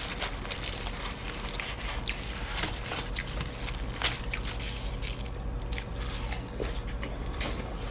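Flaky butterfly puff pastry (나비파이) being pulled apart by hand, its layers crackling and crumbling in many small close-up crackles, with one sharper snap about four seconds in. Near the end a piece is bitten and chewed.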